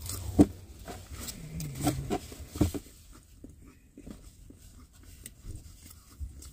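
Eating sounds: scattered clicks and smacks of chewing and cutlery, busiest in the first three seconds and sparser after, with a brief low hum of a voice about one and a half seconds in.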